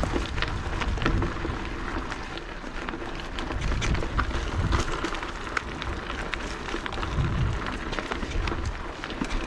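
Mountain bike riding along a dirt bush track: tyre noise with many irregular clicks and rattles, and wind rumbling on the microphone.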